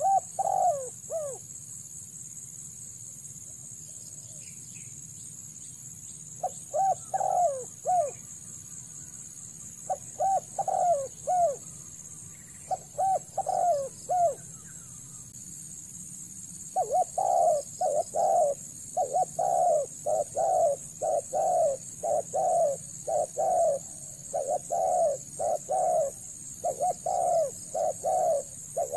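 Spotted doves cooing in repeated phrases of three or four notes. The phrases come sparsely at first and follow each other in quick succession over the second half.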